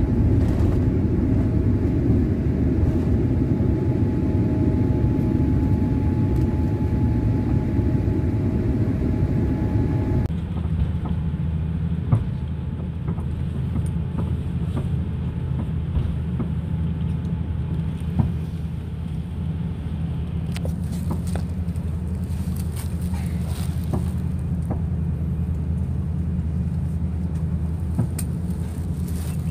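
Inside an airliner cabin: a Boeing 787 rolling along the runway, a loud steady rumble with a few steady engine tones over it, cuts off suddenly about ten seconds in. It gives way to the lower, steady hum of an Airbus A350 taxiing, with a few light knocks.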